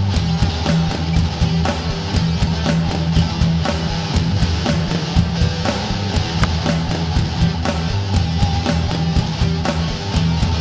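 Loud rock music with guitar and a steady drum beat.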